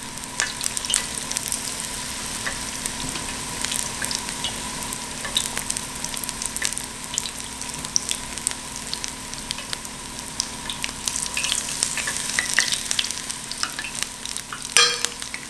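Batter-coated squash blossoms frying in hot oil in a cast-iron skillet: a steady sizzle full of small crackles and pops, with one sharper, louder pop near the end.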